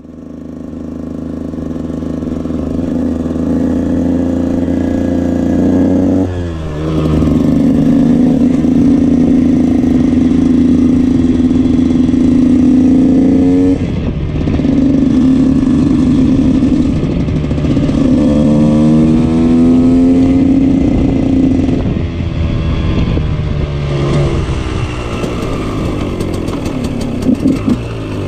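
KTM 125 EXC two-stroke motorcycle engine heard from onboard, fading in and then running hard on the road. The revs climb and hold high for several seconds at a time, with brief drops every several seconds and rising revs around the middle.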